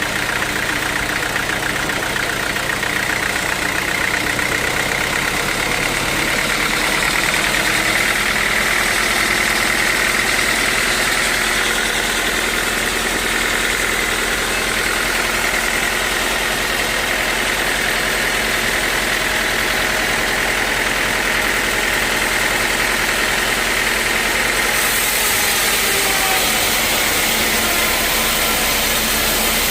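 Band sawmill running steadily, its engine and blade making a continuous mechanical drone.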